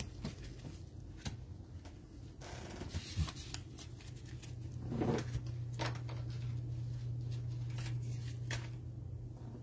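Trading cards and their packaging being handled: soft rustles and light clicks, a little louder around five seconds in, over a low steady hum that sets in near the middle.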